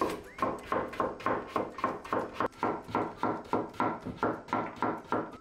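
Chef's knife chopping cucumber into thin slices on a wooden cutting board: a steady run of crisp knocks as the blade cuts through and strikes the board, about four a second.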